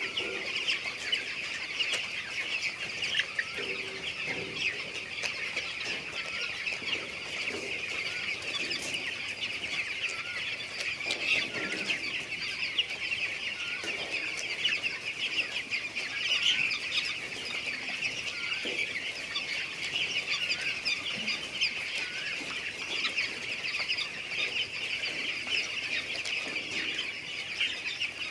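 A large flock of chickens in a poultry house, calling continuously: a dense chorus of many overlapping high-pitched peeps with occasional lower clucks.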